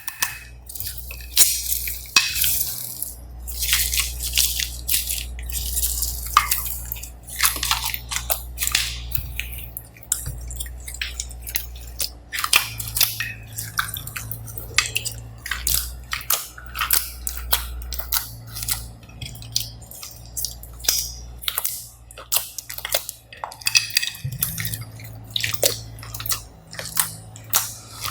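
Glossy slime being kneaded and stretched by hand, giving irregular wet clicks, squelches and pops over a steady low hum.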